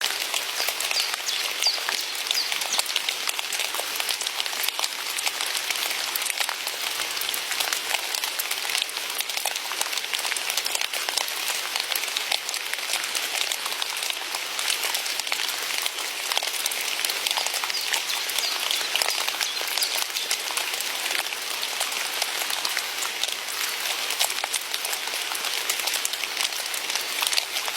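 Heavy rain falling steadily, a dense patter of individual drops over a constant hiss.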